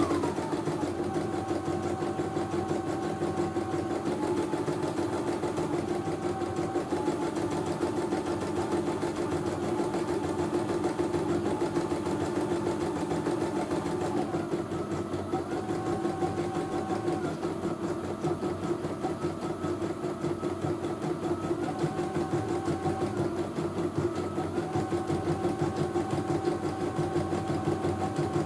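CNY E900 computerized embroidery machine stitching a design on a test run: steady rapid needle stitching over the motor's hum. A whine steps up and down in pitch every few seconds.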